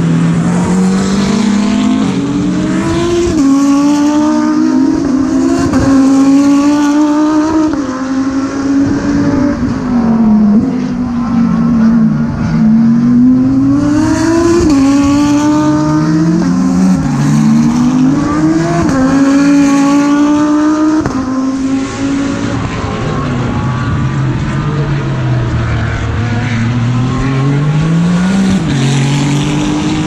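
Several GT3 race cars running on a circuit, their engine notes overlapping. They rise through the gears with sharp drops at each upshift and fall away on lift-off and downshifts.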